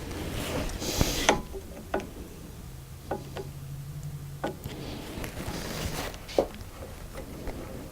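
Metal mill parts and hand tools being handled during adjustment of the Z-axis slide: scattered clicks and knocks, with rustling around the first second and again near six seconds, and a low hum for about two seconds in the middle.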